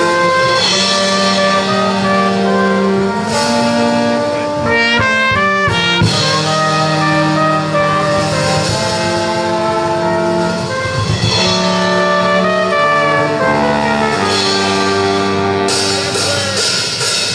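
Brass band playing loud music: held chords, with a quick rising run of notes about five seconds in.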